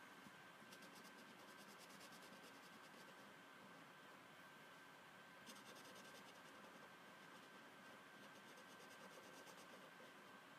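Faint scratching of a felt-tip marker colouring on paper in rapid back-and-forth strokes, in two spells: from about a second in to about three seconds, and again from about five and a half to nine and a half seconds.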